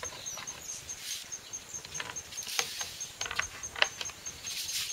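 Plastic PVC pipe fittings of a foam-padded stand being pushed together and set down on a wooden board: scattered clicks and knocks with some rubbing of plastic and foam, the clicks bunched around the middle.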